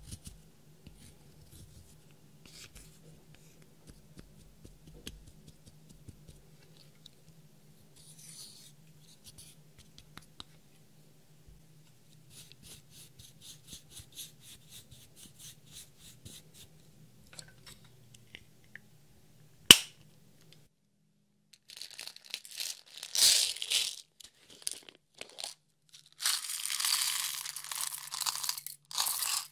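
Slime being handled and worked by hand: soft sticky clicks and pops, one sharp click a little past the middle, then loud crackling and crunching in the last third.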